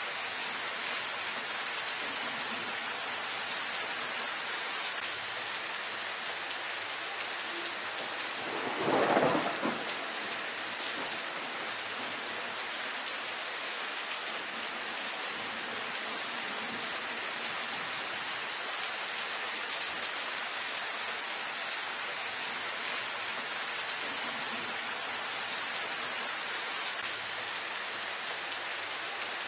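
Steady rain, with one short rumble of thunder about nine seconds in that is the loudest moment.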